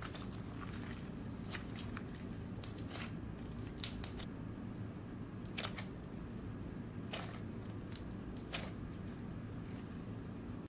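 Slime being squeezed and stretched by hand, giving faint scattered clicks and pops every second or so, over a low steady hum.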